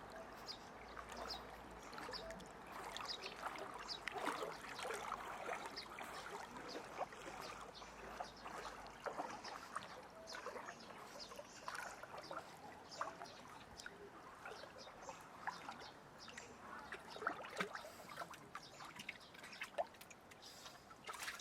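Faint pool water lapping and trickling, with many small splashes and drips as a small dog paddles.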